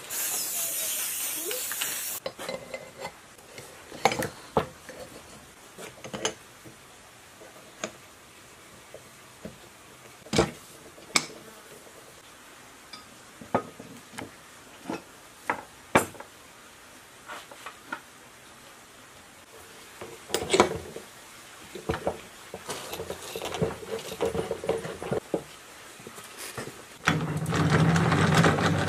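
Aerosol spray-paint can hissing, cutting off about two seconds in. Then scattered knocks and clinks of metal lathe parts being handled and fitted together. Near the end a steadier, harsher noise starts.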